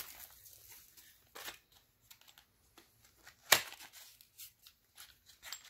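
Soft rustles and scrapes of a small cardboard box of Crosman Powerlet CO2 cartridges being handled and opened, with one sharp click about three and a half seconds in.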